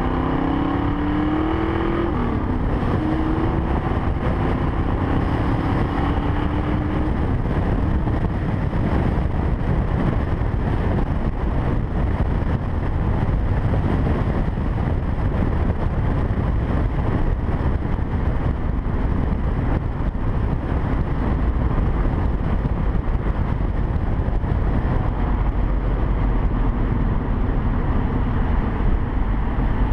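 The 1965 Mustang Fastback's 392 stroker V8 pulls with its pitch rising, changes gear about two seconds in and pulls again for a few seconds. It then settles into steady cruising under heavy wind and road noise on the car-mounted microphone.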